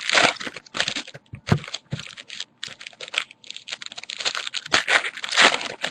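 Trading cards and pack wrappers being handled: quick, irregular clicking and rustling as cards are flicked through one by one.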